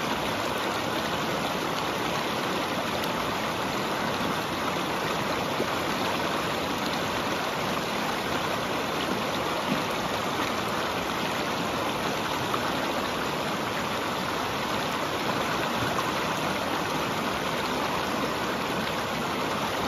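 Shallow mountain stream rushing and splashing over boulders and stones in a steady, even flow.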